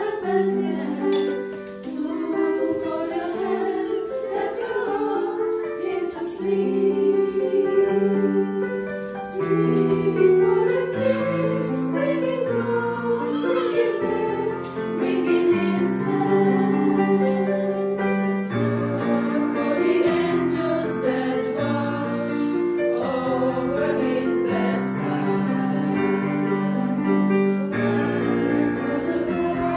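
Girls' choir singing a Christmas song together, in long held notes that move step by step.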